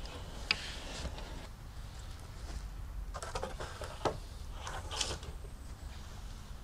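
Wooden poles being handled on a log frame: a few scattered knocks and scraping rustles of wood against wood, over a steady low rumble.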